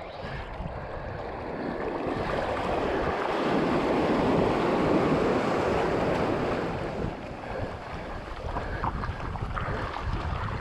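Surf surging in over the shore rocks, swelling to a loud rush in the middle and easing off after a few seconds, with wind buffeting the microphone.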